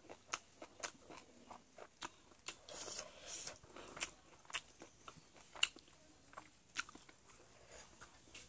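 Close-up eating sounds of chewing and biting into cooked chicken, with many sharp, irregular crunches and clicks and a longer smacking stretch about three seconds in.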